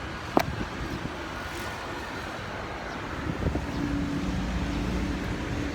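Steady background rumble of road traffic or a running vehicle, with a sharp click about half a second in and a steady low hum joining in the second half.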